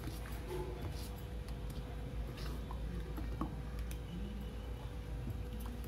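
Thick adai batter with greens being mixed in a bowl: faint squelching with a few light clicks, over a steady low hum.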